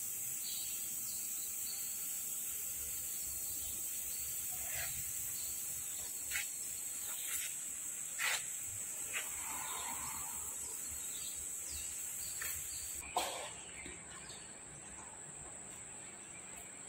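Quiet background with a steady high-pitched hiss and a few scattered light clicks and knocks. The loudest knock comes about thirteen seconds in, after which it is a little quieter.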